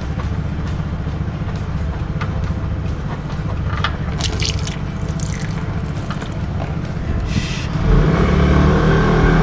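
A spin-on oil filter being turned off its mount by hand, with scraping and clicks, over background music that gets louder about eight seconds in.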